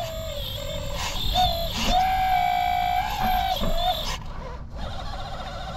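Electric hydraulic pump whining in a 1/20-scale RC construction model. The pitch shifts up and down in steps as the hydraulics are worked, holds steady for about a second and a half in the middle, and turns wavering near the end.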